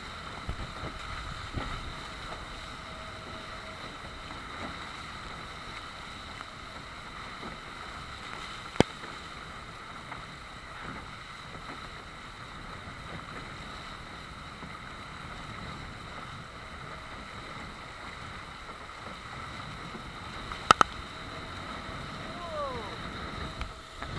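Nacra F18 catamaran hull rushing through choppy water at speed, a steady wash of water and wind noise on the microphone. A sharp knock breaks through about nine seconds in, and a quick double knock comes near the end.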